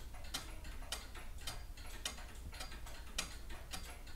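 Rebuilt 150-year-old Ingraham pendulum clock movement ticking steadily at about two ticks a second, running evenly after its repair.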